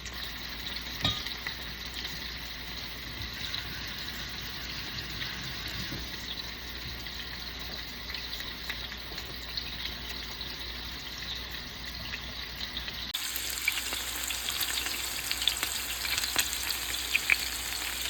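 Meatballs frying in hot oil in a pan: a steady sizzle with scattered small crackles and pops. About two-thirds of the way through it turns louder and brighter, with more frequent pops.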